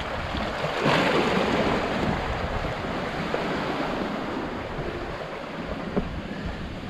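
Shallow sea water washing and sloshing among shoreline rocks, with wind on the microphone; the wash swells about a second in, then slowly eases. A single light knock near the end.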